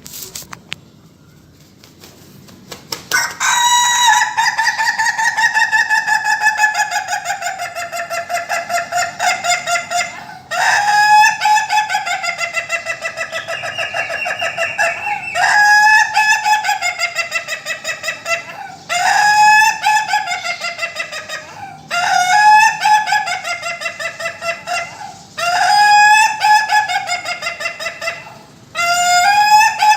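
Ayam ketawa (laughing chicken) rooster crowing seven times, each crow a long call chopped into a rapid stuttering chatter that rises briefly and then falls in pitch. The first crow, about three seconds in, is the longest, about seven seconds; the rest follow every three to five seconds.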